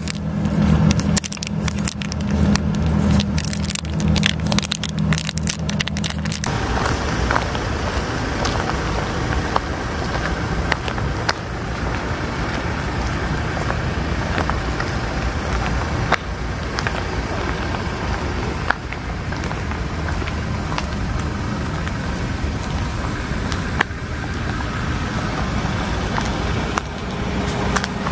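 A cat licking and chewing a paste treat, many small wet clicks over a low steady hum. After about six and a half seconds the sound changes abruptly to a steady outdoor noise with occasional faint clicks.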